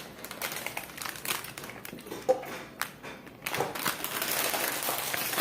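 Crinkling and rustling of a chip bag as the next chip is taken out, with scattered small clicks and a denser rustle about three and a half seconds in.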